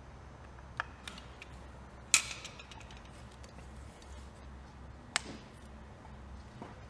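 A few short, sharp clicks from pliers and hand tools on the tape-wrapped air cleaner centre bolt as it is tightened. The loudest click comes about two seconds in and rings briefly.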